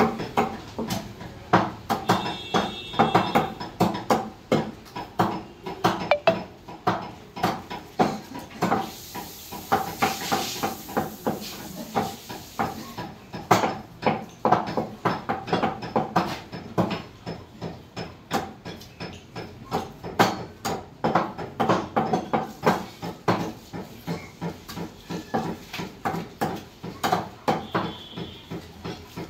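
Meat cleaver chopping raw chicken on a thick wooden log chopping block: rapid, repeated chops, several a second, with bone being hacked through.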